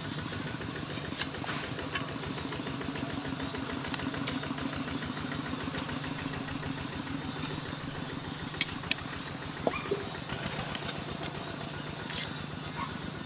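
An engine running steadily with a fast, even pulse. A few sharp clinks of a metal spoon on a metal plate in the second half.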